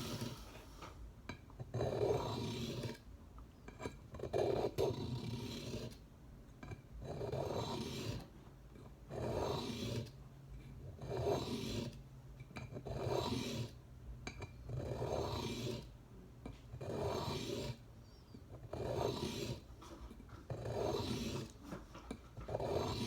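Knife blade being drawn across a medium-grit diamond sharpening stone: a rasping stroke about every two seconds, each lasting around a second.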